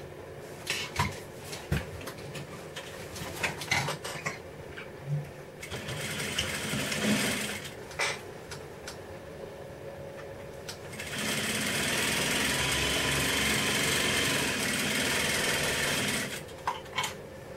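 Juki industrial sewing machine stitching fabric: a shorter, quieter run about six seconds in, then a steady, louder run of about five seconds from about eleven seconds in. Clicks and taps of the fabric being handled come between the runs.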